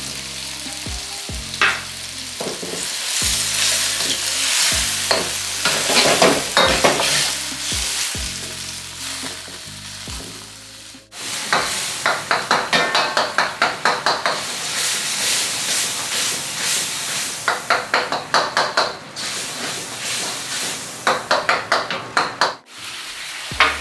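Chopped tomatoes frying and sizzling in oil in a karahi, stirred with a spatula. The scraping strokes come in quick runs of about three or four a second through the second half.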